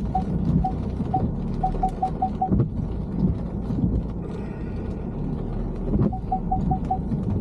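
Car's proximity warning beeping over the car's running noise: beeps about twice a second, which speed up to rapid beeping, pause, and come again fast near the end, a sign that the sensors are detecting an obstacle close to the car.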